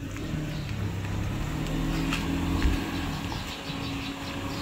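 A motor vehicle engine running, a steady low hum that is loudest about halfway through.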